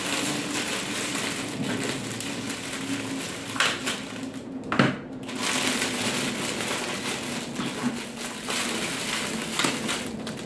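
Clear cellophane gift wrap crinkling and rustling continuously as it is gathered and pinched around a potted plant, with a few louder snaps.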